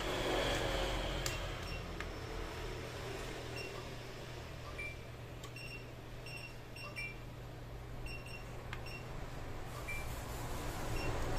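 Faint taps of multimeter probe tips against a laptop motherboard, over a steady low hum. Short high-pitched pips come irregularly throughout.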